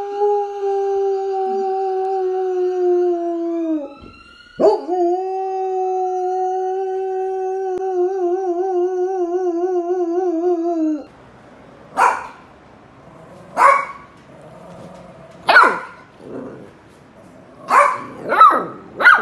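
A golden retriever howling: two long, steady howls, the first breaking off about four seconds in, the second wavering in pitch near its end before falling away. Then a golden retriever puppy gives about six short, sharp barks, each falling in pitch.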